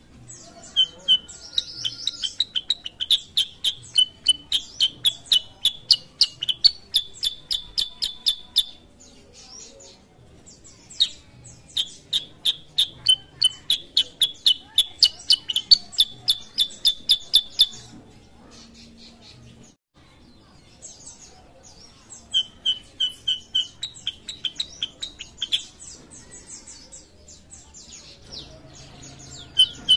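Black-headed bulbul (kutilang sutra) singing long runs of rapid, repeated high chirps, about five a second, in several phrases with short pauses between them.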